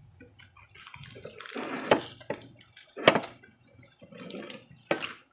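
Close-up chewing and mouth sounds of someone eating crispy fried pork chop: wet smacking with sharp crunches about two, three and five seconds in.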